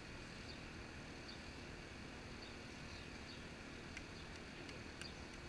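Quiet outdoor ambience: a steady low background rumble with faint, scattered high bird chirps.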